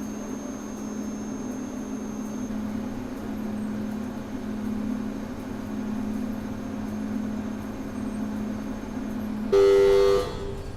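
Steady low mechanical hum, then near the end a short, loud horn blast from a train, lasting under a second.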